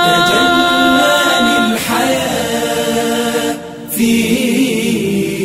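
A cappella Arabic nasheed: voices singing without instruments, holding one long note and then moving through the melody, with a short pause a little before the end.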